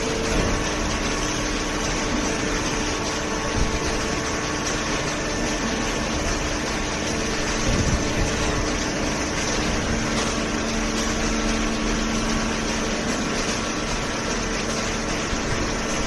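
Hydraulic waste-paper baler and its feed conveyor running: a steady machine hum with a few held tones over an even noise.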